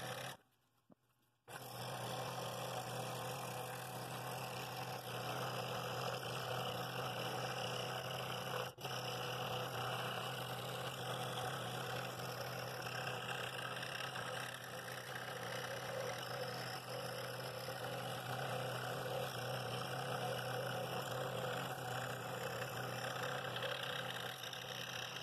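Scroll saw running steadily, its reciprocating blade cutting through walnut, with a constant low hum under the cutting noise. The sound drops out for about a second near the start.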